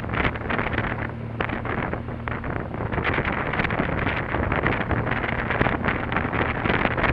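Wind buffeting the microphone of a camera riding on a BMW R 1200 GS Adventure motorcycle, over the steady low drone of its boxer-twin engine cruising at low speed. The wind noise eases about a second in and picks up again about three seconds in.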